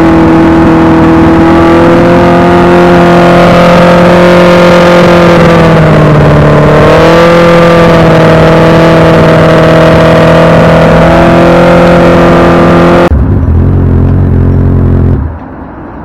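Honda CB650 inline-four engine revved and held at high rpm through its exhaust, with the pitch dipping and climbing back about six seconds in. About thirteen seconds in it switches abruptly to a lower, deeper running note, which drops away near the end.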